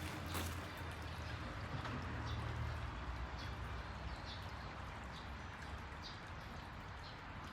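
Outdoor ambience: a steady low rumble with faint, short high chirps repeating every second or so.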